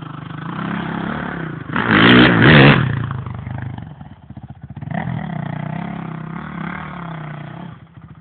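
Motocross bike engines revving hard as riders climb an uphill corner. One bike passes loudest about two seconds in. A second follows with its engine pitch rising and falling until it cuts off just before the end.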